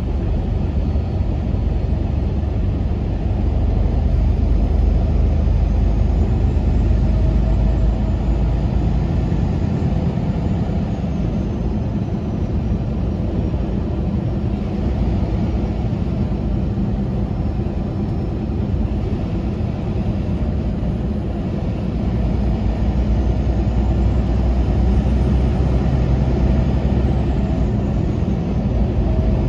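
Diesel truck driving: a steady engine and road rumble that swells louder twice, about a third of the way in and again near the end.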